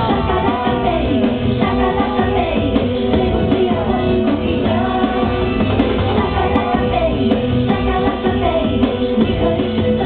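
A woman singing into a handheld microphone over a loud, steady pop backing track with guitar and drums.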